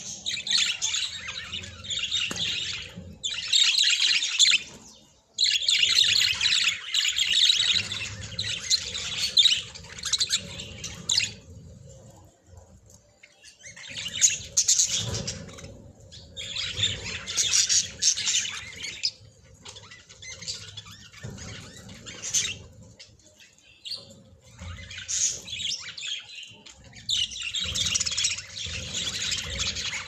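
A flock of budgerigars chattering and warbling in bouts of dense, high chirping a few seconds long, with short pauses between.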